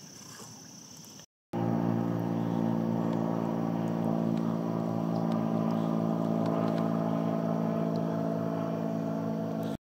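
An engine running steadily at one unchanging speed. It starts abruptly about a second and a half in and cuts off just before the end.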